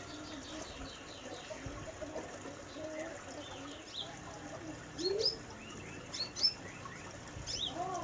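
Brown-throated sunbird calling: a run of sharp, high chirps and quick rising notes that grow louder from about five seconds in, with lower warbling notes underneath.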